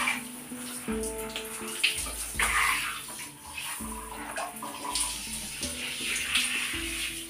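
Water spraying from a handheld shower head onto wet hair and skin. The hiss swells and fades as the spray is moved, over background music.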